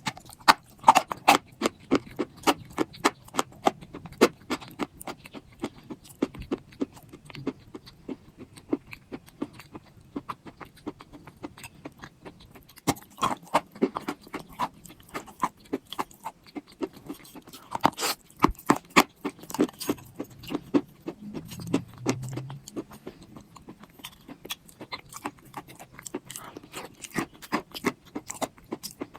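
Soft clay pieces crunching: a dense run of sharp crackles, several a second, with louder bursts of crunching now and then.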